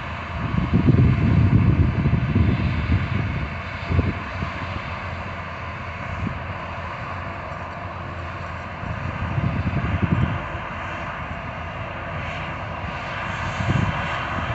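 Harvest machinery running steadily, with low rumbles that swell and fade several times.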